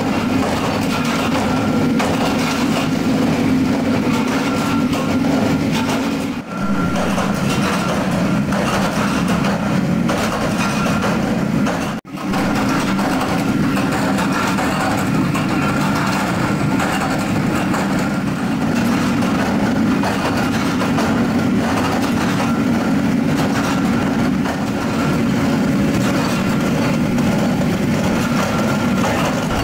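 Steady din of belt-driven flywheel presses and workshop machinery running, with a constant low hum and a faint steady whine above it. The noise dips briefly twice, about six and twelve seconds in.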